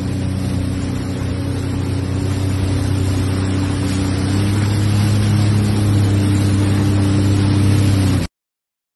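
Jet ski engine running at a steady cruise, a low hum over water rushing past the hull as it moves through floodwater; the sound cuts off abruptly about eight seconds in.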